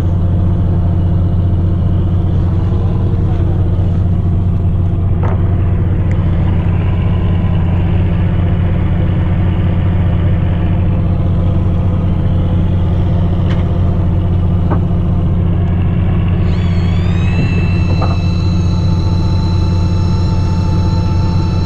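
Fishing boat's engine running with a steady low drone. A few faint clicks, and about three-quarters of the way in a high whine rises and then holds steady.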